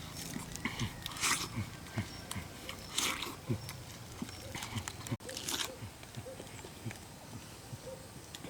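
An animal grunting: short, low calls, each falling in pitch, about two a second. Three louder hissing or rustling bursts come in among them, about one, three and five and a half seconds in.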